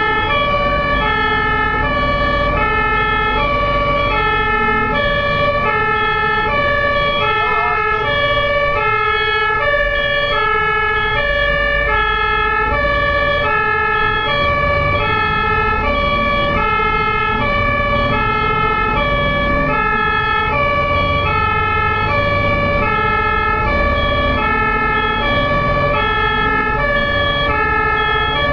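German ambulance two-tone siren, loud and steady, switching between a lower and a higher pitch about every three-quarters of a second. A low vehicle and road rumble runs underneath.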